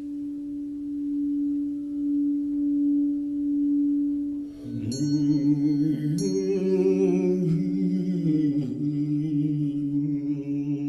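A singing bowl ringing one steady tone that swells and fades in slow pulses. About four and a half seconds in, a man's deep voice begins toning and chanting over it, with high ringing tones above.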